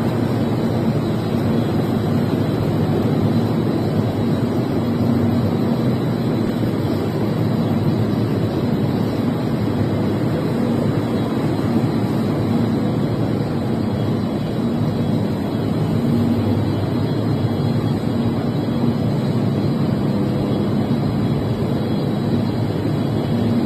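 Steady din of wire-processing machines running in a spring wire factory workshop, with a steady hum underneath.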